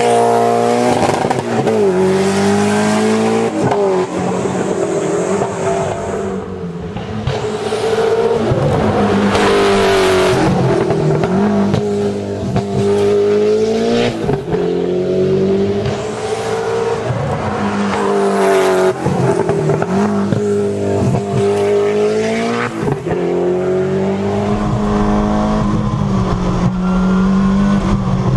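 Peugeot 205 T16 Group B rally car's turbocharged 1.8-litre four-cylinder engine at full racing throttle: the pitch climbs and drops again and again as the car accelerates, shifts gear and lifts for corners, with sharp cracks at several lifts. Near the end it is heard from inside the cabin, a steadier engine note.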